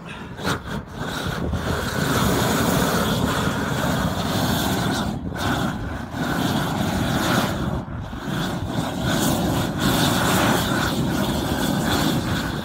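Propane roofing torch burning steadily, its flame heating a glue-down rubber membrane patch to bond it over a roof drain. The steady rush of the flame dips briefly twice near the middle.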